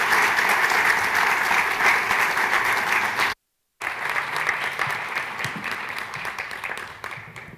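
Audience applauding steadily. The applause drops out for a split second about three and a half seconds in, then returns and fades away near the end.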